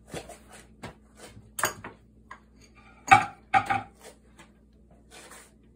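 Kitchen dishes and utensils clattering: several light clicks and knocks, then two louder clinks with a short ring about three seconds in.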